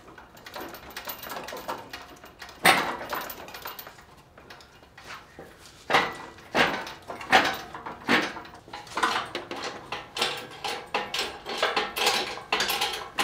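Irregular metallic clanks and knocks of tools and car parts being worked during an engine pull, with one loud knock about three seconds in and a busier run of clatter over the last few seconds.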